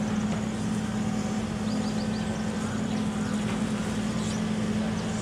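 A steady motor hum with a constant low drone, and a few faint high chirps about two seconds in.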